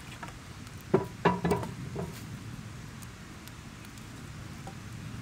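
Firewood sticks knocking together as they are handled beside a campfire: about four sharp wooden knocks in quick succession between one and two seconds in. Faint crackling of the fire follows.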